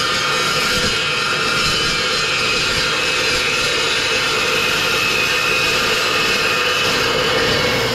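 Evolution metal-cutting chop saw running under load, its blade cutting through 4-inch square metal tubing with a steady, loud cutting noise and ringing tones.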